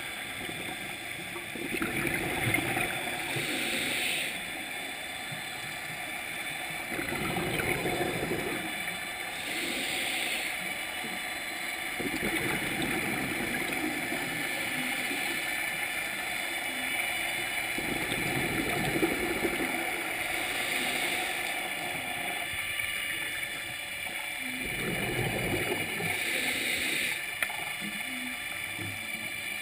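Scuba regulator breathing heard underwater: slow breaths several seconds apart, each drawn in with a hiss and let out as a gurgling rush of bubbles, over a steady faint underwater hum.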